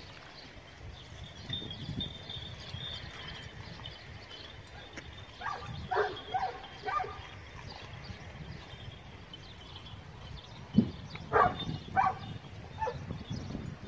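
Dog barking in short yips, a few in a quick cluster about six seconds in and another few from about eleven to thirteen seconds, with a short loud thump just before the second cluster.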